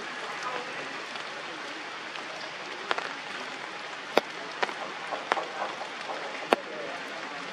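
Steady rain falling on forest foliage, with about five sharp taps of heavy drops hitting leaves close by, starting about three seconds in.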